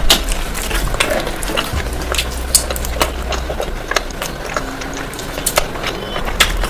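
Irregular crisp clicks and crunches of someone chewing food, over a low steady hum.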